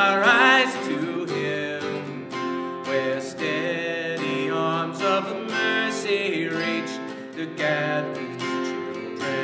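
Acoustic guitar music: strummed chords under a melody line.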